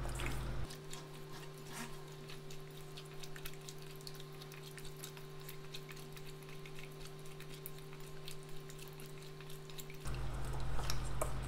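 Faint, irregular wet squishing and clicking of raw chicken wings being kneaded and squeezed by hand in a stainless steel bowl, over a steady low hum.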